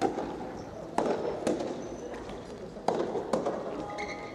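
Soft tennis rally: rackets striking the soft rubber ball and the ball bouncing on the wooden court, about five sharp pops in pairs, each echoing through the large hall.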